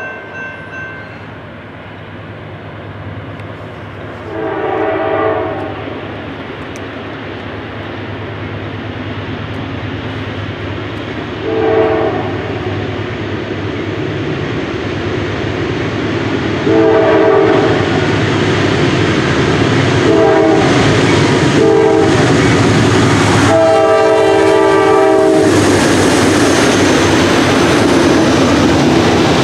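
Norfolk Southern GE D9-44CW diesel locomotives lead a freight train of grain hoppers toward the listener with a growing rumble. The multi-tone air horn sounds six times: a long blast early on, a short one, then long, short, short and a final long blast. Near the end the locomotives pass close by, engines running and wheels on the rails, at the loudest point.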